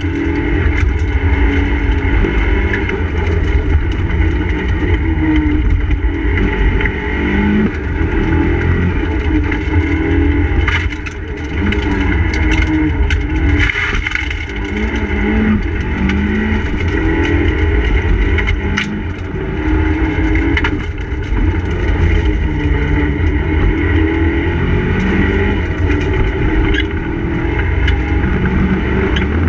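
Mitsubishi Lancer Evolution IV's turbocharged four-cylinder engine heard from inside the cabin, driven hard: the engine note climbs and drops again and again as it is taken through the gears, over a heavy rumble, with a few sharp clicks.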